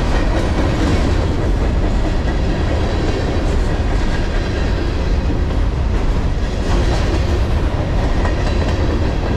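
Freight cars carrying empty garbage containers rolling past at close range: a loud, steady noise of steel wheels running on the rails.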